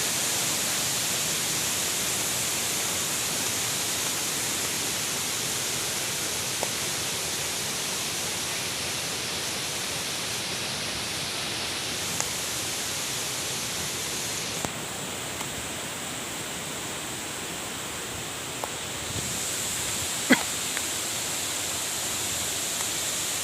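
Sarika Waterfall's water rushing steadily, an even hiss with a few faint clicks.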